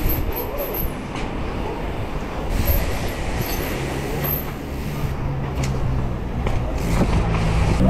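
Wind rushing over the camera microphone and mountain bike tyres rolling on asphalt, with a few knocks and rattles over bumps. A low, steady engine hum from nearby traffic comes in about halfway.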